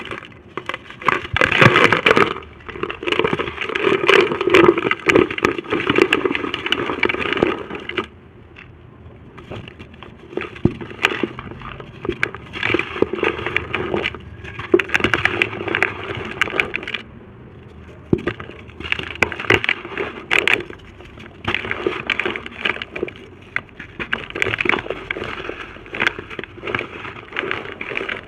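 Dry shapes moulded from red brick dust and dirt being crushed and crumbled, giving crisp crackling crunches. The first burst of crunching lasts several seconds; after it come about six shorter bursts with quieter pauses between them.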